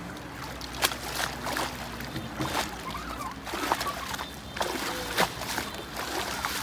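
Water splashing and sloshing as a mesh hand net is worked through the water and lifted out, with several sharp slaps of water, the loudest about a second in and about five seconds in.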